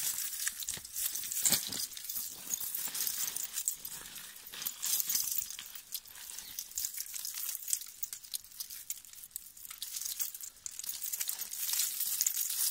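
Thule König XG-12 Pro steel snow chains clinking and jangling as they are pulled out of their storage bag and shaken loose, with the bag's fabric rustling.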